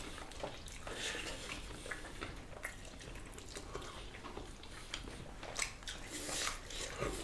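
Quiet eating sounds: wet chewing and lip smacks, with scattered soft clicks of fingers and food against plates as two people eat rice, fish and grilled meat with their hands.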